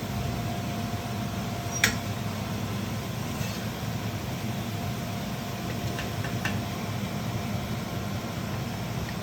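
Steady low mechanical hum, like a fan running, with a sharp click about two seconds in and two faint clicks around six seconds.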